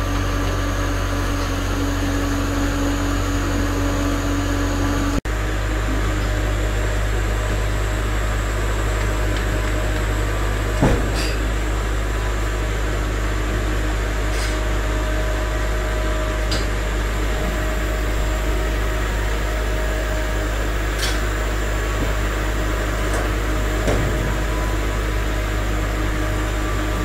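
Kale harvester's processing machinery running with a steady mechanical hum that changes slightly about five seconds in. A few light clicks and knocks sound over it.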